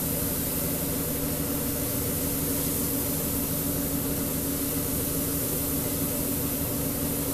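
Gravity-feed paint spray gun hissing steadily as it atomises paint onto a car's front end, over a steady motor hum.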